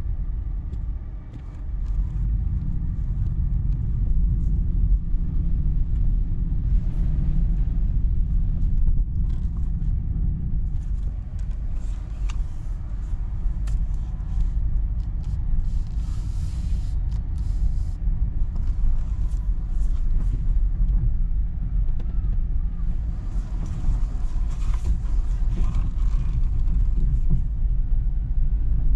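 Car cabin noise while driving: a steady low rumble from the road and engine, with stretches of hiss from the tyres, some of them loud.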